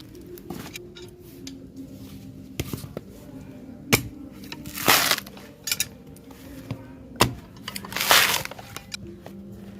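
Knife cutting a sprouted coconut: sharp strikes about four and seven seconds in, and two longer scraping cuts through the husk around five and eight seconds in, with lighter taps between.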